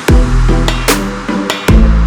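Background electronic music with a heavy kick drum, sharp beats and a deep sustained bass.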